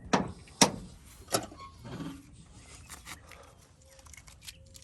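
Sharp clicks and knocks of hands working the Sprinter's fuel door and its new rubber bumpers: three loud knocks in the first second and a half, then lighter taps.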